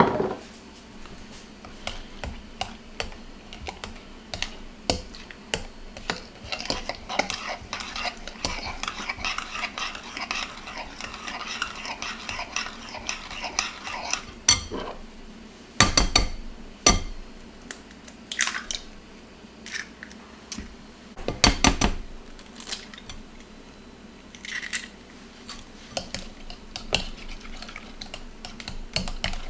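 Kitchen utensils and dishes clinking and scraping, with a busy run of rapid clinking and stirring in the first half and a few louder knocks later on.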